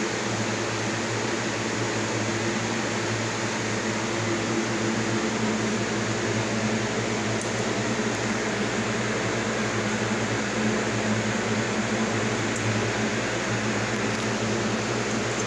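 Steady low hum with hiss, like a fan running, unchanging throughout.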